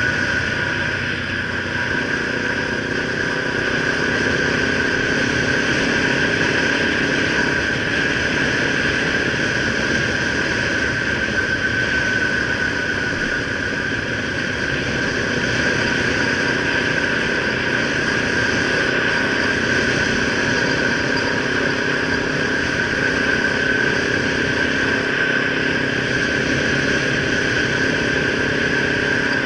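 Kawasaki Ninja 300's parallel-twin engine running at a steady cruise, heard from the rider's position over an even rush of road and wind noise, with a steady high-pitched whine throughout.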